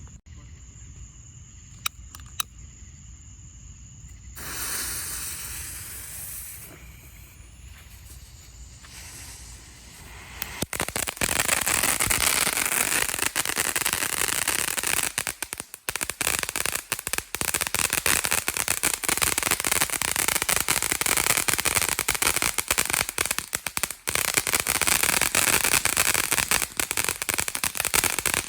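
TNT Wild Side finale fountain firework: a couple of sharp clicks, then a hiss building from about four seconds in, and from about ten seconds in the fountain is in full eruption with a loud, dense, continuous crackle from its silver crackling effects.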